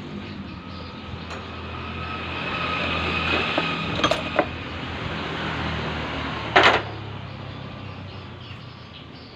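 An engine running with a low, even hum that swells for about three seconds and then slowly fades away. There are a few sharp metallic clicks midway, the loudest about two-thirds of the way in.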